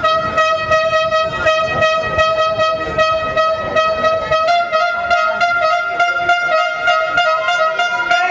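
A long, steady horn-like tone starts suddenly and is held throughout, stepping up slightly in pitch about halfway, over a regular beat of sharp strokes.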